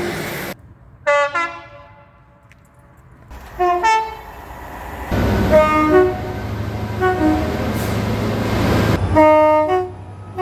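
Train horns sounding short toots that step between pitches, in several spliced clips that cut in and out abruptly. A passing train's low rumble runs under the middle section.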